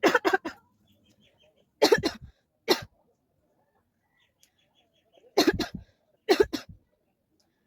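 A person coughing in about five short bouts, some coughs coming two or three in quick succession, with pauses of up to two and a half seconds between bouts.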